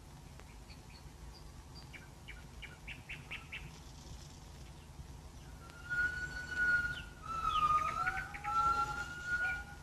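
Birds calling in a forest: a quick run of chirps, then about four seconds in, louder long whistled notes that hold steady and slide between pitches, over a faint steady hum.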